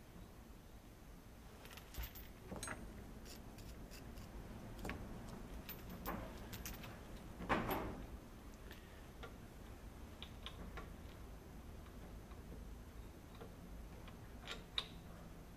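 Scattered metallic clinks and scrapes of steel flail chain being handled on a muck spreader's rotor, with a louder scrape about halfway through and a sharp clink near the end.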